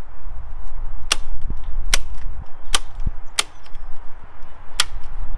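Staple gun firing five times, about one shot a second with a longer gap before the last, driving staples through hessian into pallet wood: each is a sharp snap.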